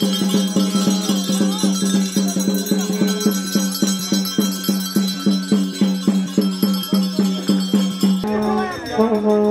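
Traditional Nepali folk band playing: a drum beaten in a fast, steady beat with metal bells jangling, over a steady held low tone. About eight seconds in, the beat stops and a long horn note starts, wavering in pitch.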